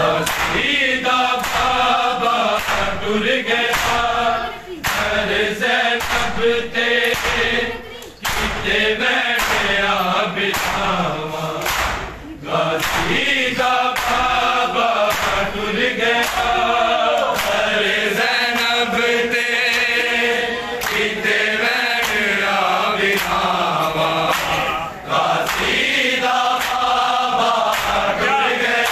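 A group of men chanting a noha in chorus, with regular chest-beating (matam) slaps keeping time, about one and a half strokes a second; the chant breaks off briefly a few times between lines.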